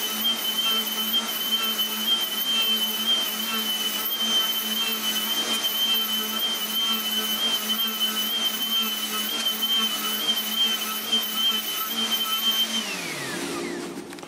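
Handheld router with a Dimar slab-flattening bit running at full speed, steadily whining as it surfaces the end grain of an oak-and-ash cutting board. Near the end it is switched off and the whine falls in pitch as the motor spins down.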